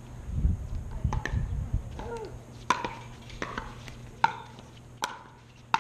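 Pickleball paddles hitting a hard plastic pickleball back and forth in a quick rally: five sharp pocks, about one every three-quarters of a second, from a little before halfway on. A low rumble fills the first two seconds.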